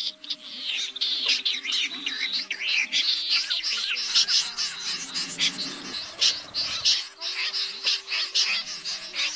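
Many common snipe calling at once: a dense, continuous chatter of short, high, overlapping chirps. Faint steady music notes sound underneath.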